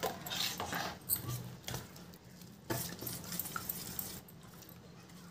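Water poured into a stainless steel bowl of semolina and curd, then a wire whisk stirring the thick batter, with a few sharp clicks of the whisk against the bowl and quieter scraping.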